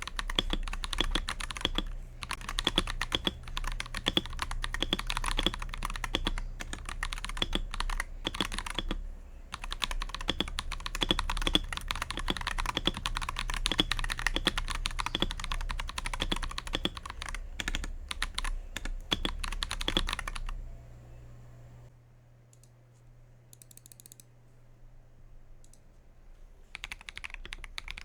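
Akko 5075S mechanical keyboard being typed on quickly, a dense run of key clacks. The typing stops about twenty seconds in, leaving a faint hum, and picks up again near the end.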